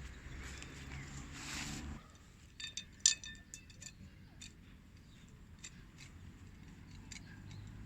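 Metal cooking or camp gear clinking with a short ringing, in a quick cluster of clinks about three seconds in, followed by a few scattered light clicks. Before that comes about two seconds of rustling that stops abruptly.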